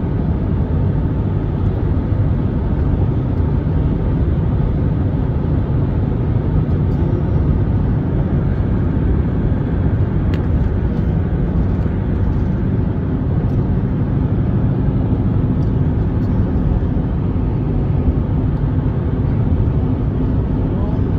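Steady road noise of a car driving at speed: an even rumble of tyres and engine that does not change.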